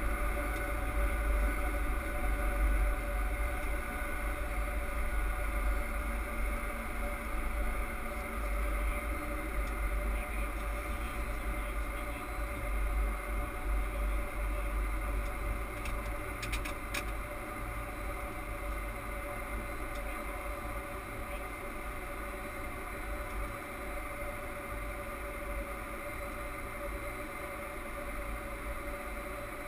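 Boeing 767 flight deck on the landing rollout: a steady low rumble with airflow noise and a few constant tones from the engines and cockpit equipment, slowly fading as the airliner decelerates. A few faint clicks come about sixteen seconds in.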